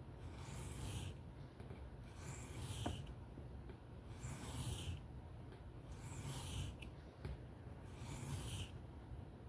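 Steel knife blade stroked by hand across a sharpening whetstone in freehand passes: a steady run of hissing scrapes, about one every three quarters of a second, over a low background hum.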